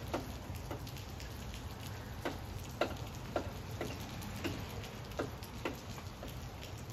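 Steady rain falling, with single heavy drops landing close by irregularly, about one or two a second, over a constant low rush.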